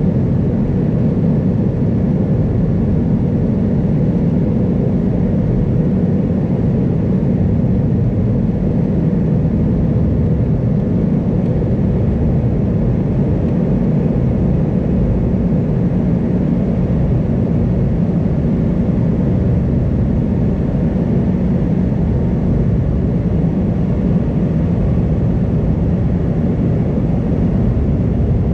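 Steady cabin noise inside an Airbus A320 climbing after takeoff: a constant low hum of the engines and rushing air, unchanging throughout.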